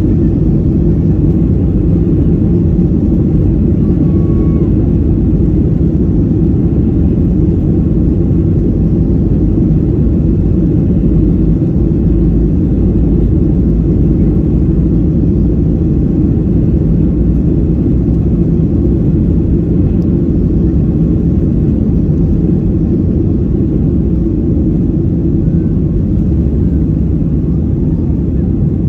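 Boeing 737 jet engines and airframe heard from inside the cabin while the airliner taxis: a steady low rumble that holds the same level throughout.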